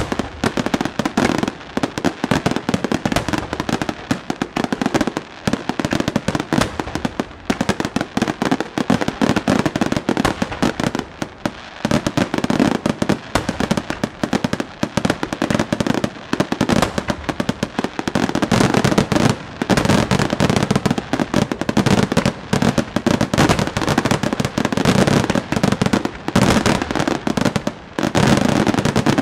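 Bruscella Fireworks aerial display: a dense barrage of firework shells bursting in rapid succession, many bangs a second with hardly a pause.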